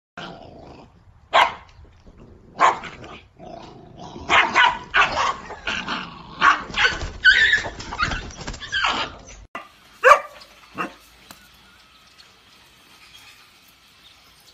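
Puppy barking and yipping in short barks, a few at first and then a quick run of them; after a brief break, two more single barks.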